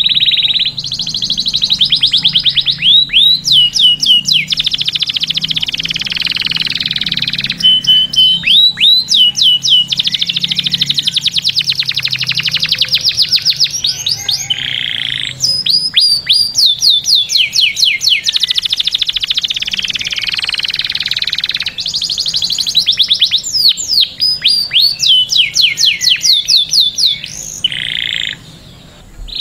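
Canary singing a long, loud song: stretches of very fast trilled notes alternating with phrases of repeated sharply sweeping notes.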